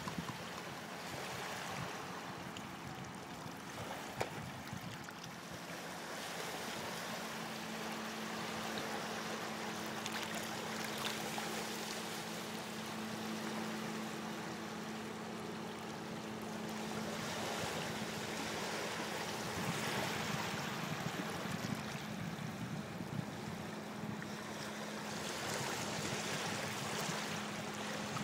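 Small waves washing and lapping over rocks at the waterline, a steady wash of water that swells and eases every few seconds. A faint steady hum runs underneath from about a quarter of the way in.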